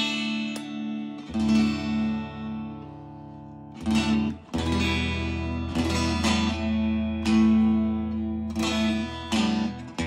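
A 1988 Fender Telecaster electric guitar played through a Fender combo amp: a run of strummed chords, each left to ring for about a second, with a brief damped break about four seconds in. The guitar is being tried out with its newly replaced three-way pickup switch.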